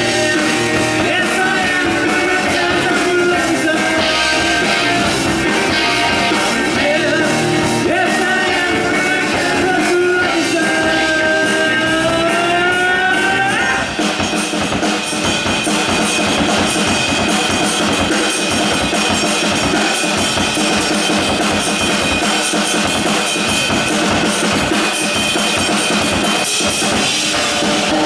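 Rock band playing: drum kit, guitar and singing. About halfway through, the sound changes from gliding melodic lines to a denser, steadier wash.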